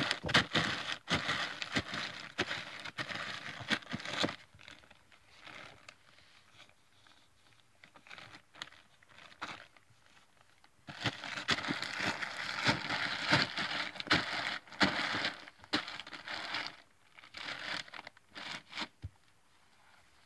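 A horse nosing into a bag of dog food: the bag crinkles, rustles and crackles with sharp clicks, in two long spells, the first at the start and the second from about halfway in, with quieter rustling between.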